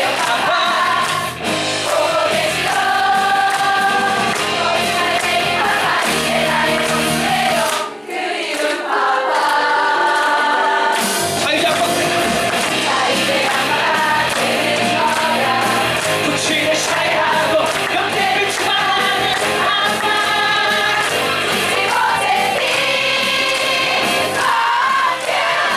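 Live vocal group singing in harmony with band accompaniment. The bass drops out for a few seconds about a third of the way in, then the full band comes back.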